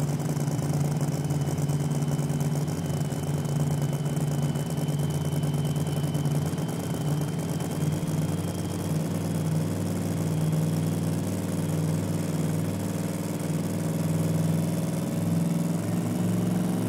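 Supercharged, nitro-burning Hemi V8 of a front-engine dragster idling steadily before launch, with a faint steady high whine above it.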